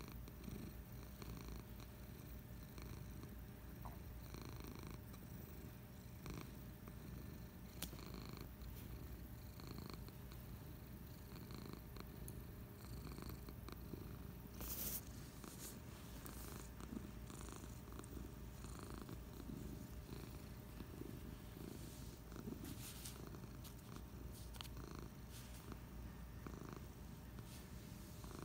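Domestic cat purring steadily, a low continuous rumble, close up while being petted. A brief scratchy noise stands out about halfway through.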